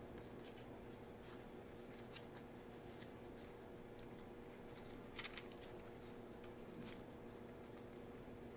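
Faint soft rustles and light taps of fingers rolling a thin crepe around a cream-covered banana on a bamboo cutting board, over a low steady hum. The clearest taps come about five and seven seconds in.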